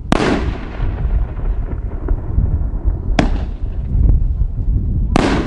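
Raccoon Fireworks 3-inch nine-shot Neon Rings cake firing: three sharp shell bursts. The first comes right at the start and has the longest echoing tail; the others come about three and five seconds in. Wind rumbles on the microphone throughout.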